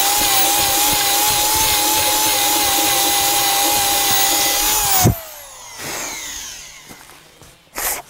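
Corded DeWalt electric drill boring through a wooden post with an auger bit, running at a steady speed, then switched off about five seconds in and winding down in falling pitch. A short rush of noise follows near the end.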